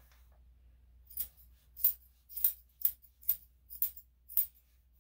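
Grooming scissors snipping through a dog's coat, about seven sharp metallic snips at roughly two a second, starting about a second in.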